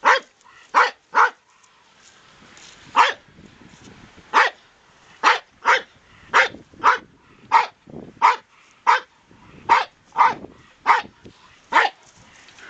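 Rat terrier dogs barking at a garter snake: about sixteen short, sharp barks at irregular intervals, sometimes two in quick succession.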